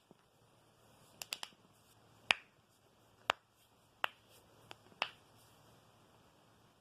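Knuckles cracking close to the microphone: a quick run of three sharp pops about a second in, then single pops roughly a second apart, fading out after about five seconds.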